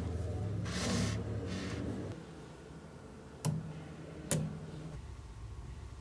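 Sliding and brushing swishes as a model built of small magnetic balls is handled and turned on a table, then two sharp clicks about a second apart as a strip of magnetic balls is pulled off the structure and snaps.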